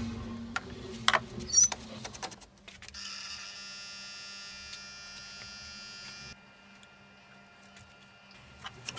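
Metal tongs clanking and scraping against the steel piece and the firebrick electric heat-treating furnace, then a steady electrical buzz from the furnace as its controller is switched on. The buzz starts about three seconds in and cuts off suddenly about three seconds later, over a low hum.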